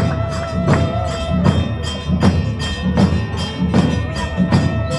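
Dhol drums beating a steady, even rhythm of a few strokes a second, marking the start of the temple chariot procession. A sustained high tone is held over the drumming in two long stretches.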